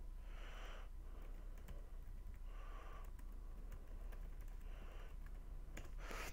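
Faint computer keyboard typing, a few scattered key clicks, with three soft breaths close to the microphone.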